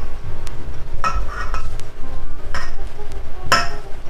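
A metal skewer clinks and scrapes against a stainless steel mixing bowl while it is pushed through a raw whole chicken to pin the cavity shut. There are a handful of short ringing clinks about a second apart, the loudest near the end.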